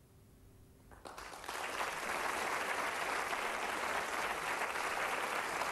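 Audience applause: after about a second of near quiet it starts, swells within half a second and holds steady as continuous clapping.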